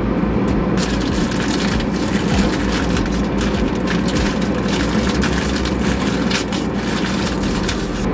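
Plastic instant-ramen packet crinkling and crackling as it is handled and worked open, starting about a second in, over a steady low hum.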